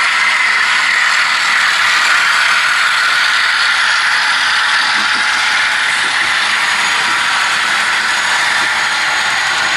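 Model railway trains running on the layout: a steady whirring clatter of small metal wheels rolling on track, with gear and motor whir from the locomotives.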